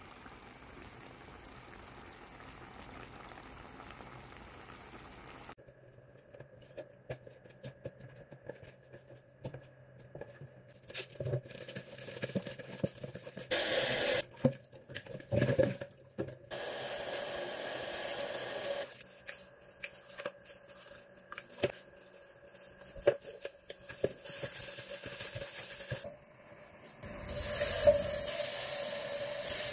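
Kitchen cooking sounds in sequence. At first there is a faint steady hiss, then scattered clicks and knocks of handling. After that comes a kitchen tap running into a plastic bowl as raw chicken pieces are rinsed, and near the end chicken sizzles as it is laid into hot oil in a frying pan.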